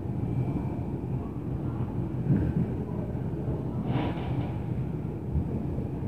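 Steady low rumble heard through the ceiling from the apartment above, with a few dull thumps, the strongest about four seconds in. The downstairs tenant takes it for stomping, a rattling light fixture and plumbing.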